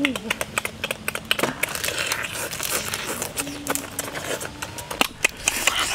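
Cooked crab shells and legs being cracked, pulled apart by hand and chewed: a dense run of sharp cracks and crunches.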